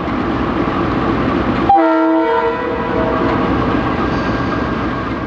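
KiwiRail DL class diesel locomotive and its train passing with a steady rumble. Near two seconds in, a short blast of the locomotive's multi-note horn sounds several tones at once and dies away over the next second.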